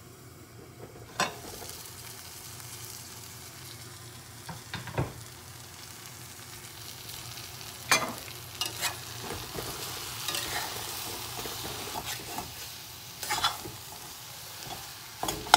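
Potato and spinach filling sizzling gently in a steel kadai, with a few sharp metallic clinks as the lid comes off and a metal spatula stirs and scrapes against the pan.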